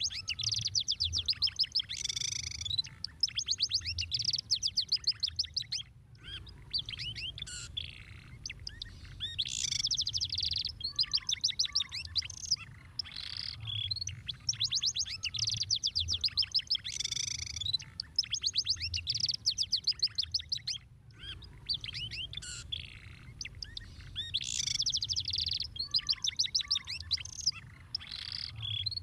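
Domestic canary song: long runs of very fast trills and rolling phrases, high-pitched, breaking off briefly twice, with a faint low rumble underneath.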